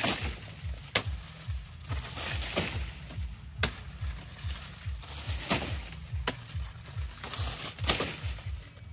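A machete chopping through sugarcane stalks at their base, a sharp crack about every one to three seconds, five in all. Background music with a steady low beat plays throughout.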